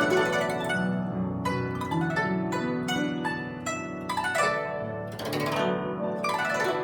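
Solo guzheng playing fast plucked notes, with two sweeping glissandos across the strings after the midpoint.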